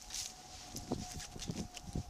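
Steady faint whine of the small motor turning a helmet-mounted rotating camera rig, with scattered soft knocks and clicks.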